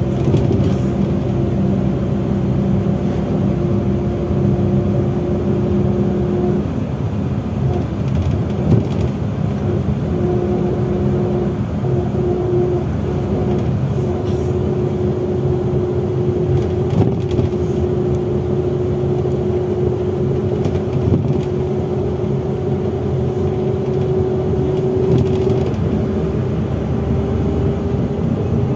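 Inside a MAZ 103 city bus under way: steady engine and drivetrain drone with a clear whine that breaks off for a few seconds about six seconds in, then returns and slowly rises in pitch toward the end. A few short knocks and rattles from the body come through, the loudest around nine and seventeen seconds in.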